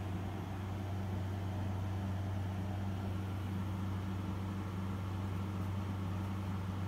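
A steady low mechanical hum with a constant pitch, under an even hiss that does not change.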